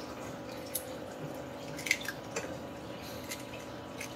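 An egg frying gently in bacon oil on low heat in a pan on an induction cooker. Scattered pops and spits of fat, about five, with the sharpest about two seconds in, sound over a faint steady hum.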